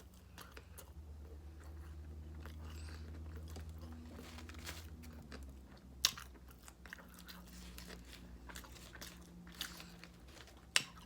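Close-miked chewing of fast food: soft mouth sounds with scattered crunches and clicks, a sharper crunch about six seconds in and another near the end, over a steady low hum.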